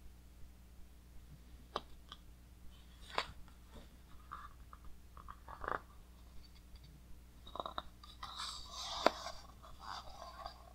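Heavy glossy pages of a large hardcover book being handled: a few soft ticks and creaks of the paper, then a crackly rustle as a page is turned near the end, with one sharp snap in the middle of it.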